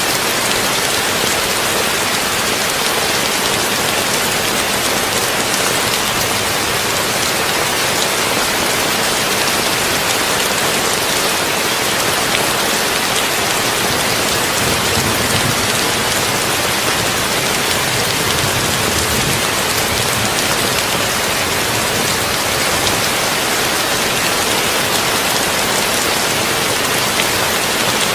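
Heavy rain drumming steadily on a tin roof: a dense, even hiss of drops. A low rumble swells faintly underneath for a few seconds around the middle.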